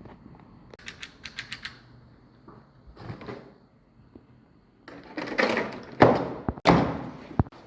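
Packaging being handled during an unboxing. First comes a quick run of about six sharp clicks, then a short scrape. From about five seconds in there are louder rustling and scraping bursts, loudest near the end.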